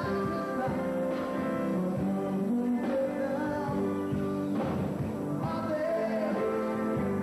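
A pop-rock band playing live, with sustained chords held and changing every second or so.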